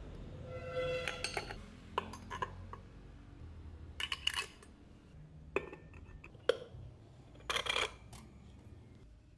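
Scattered metal clinks and clicks of small hardware being handled as a go-kart wheel hub is assembled: a spanner on the wheel-stud nuts, a steel spacer, and a steel sprocket set over the studs. One clink about a second in rings briefly.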